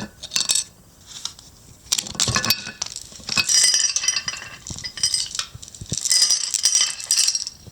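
Small hard miniature pieces clinking and rattling against one another as they are picked up and gathered, in several short bursts.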